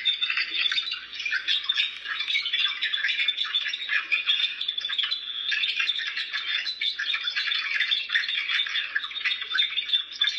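Garbled, chirping, crackly electronic noise from a recorded phone call, thin and tinny with a faint steady high whine through it. It cuts in suddenly at the start and runs on busy and uneven.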